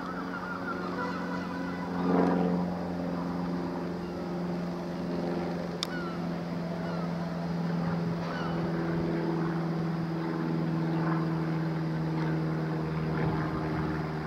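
Class 47 diesel locomotive's Sulzer V12 engine running with a steady low drone as the locomotive moves slowly at the rear of the train. A brief sharp click sounds about six seconds in.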